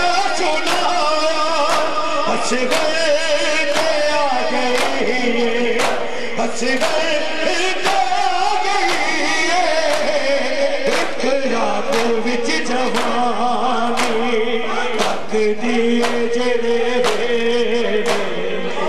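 A Punjabi noha sung by a male reciter with a crowd of men chanting along, over a steady beat of sharp slaps as the men strike their bare chests together in matam.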